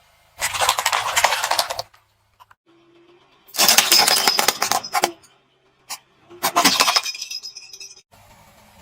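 Car tyre rolling over and crushing hard, crunchy objects: dense crackling and clinking. It comes three times, each lasting about a second and a half, with short silent gaps between.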